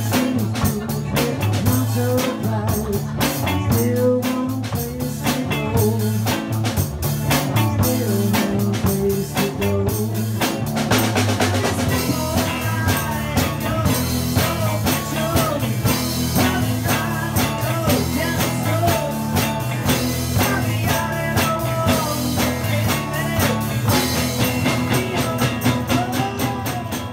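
Live rock band playing with a steady beat: drum kit, electric guitar and electric organ-style keyboard over a repeating bass line, with a voice singing in the later part. The music fades out at the end.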